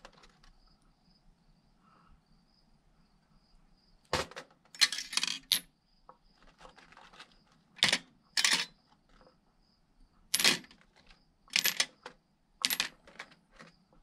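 Small steel parts of a 7.3 Powerstroke HEUI diesel injector clinking against a stainless steel bowl and a wire parts basket as they are handled and set down. There are about eight sharp, irregular clinks, starting about four seconds in after a quiet start.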